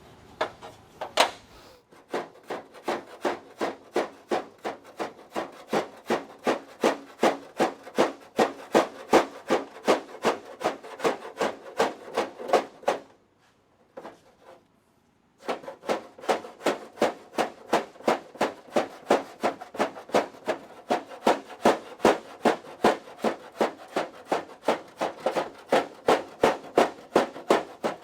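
Hammer blows on the sheet-steel inner panel of a 1928 Ford Model A trunk lid, struck against a homemade flat-metal tool with a groove cut in it to straighten a bent edge. The blows come evenly at about two to three a second, with a short break about halfway through.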